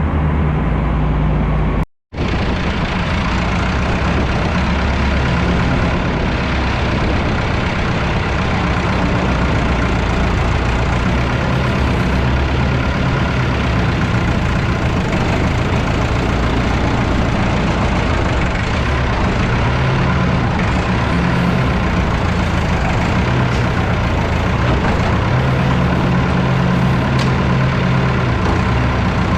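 Farm tractor engine running steadily under a loud mechanical din. The sound cuts out for a moment about two seconds in.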